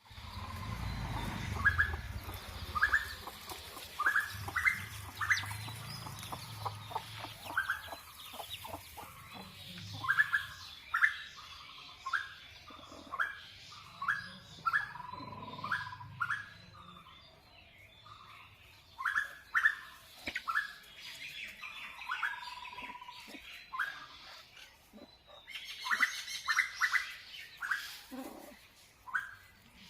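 Birds calling: short sharp chirps repeated about once a second, a few drawn out into a brief held note. A low rumble sits under them for the first ten seconds or so.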